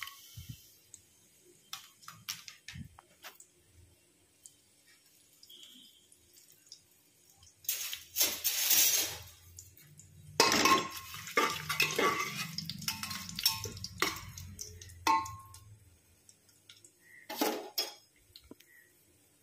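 Metal cookware clattering and clinking around an aluminium pressure-cooker pan: scattered small clicks at first, a loud burst about eight seconds in, then several seconds of dense clanking with a ringing metal tone, and one more short clatter near the end.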